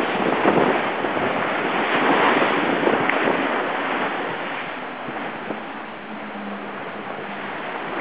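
Water rushing and spraying along the hull of a Class 40 racing yacht sailing fast, with wind buffeting the microphone. The rush is loudest in the first few seconds and eases off about two-thirds of the way through.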